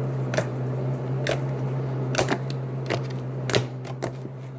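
Slime being squeezed and worked by hand, giving several sharp, irregular clicks and pops as trapped air bubbles burst.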